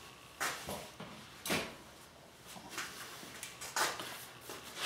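Handling noise as a bicycle wheel is set aside and a sprung saddle is picked up: about half a dozen short, irregular knocks and scrapes, the loudest about a second and a half in.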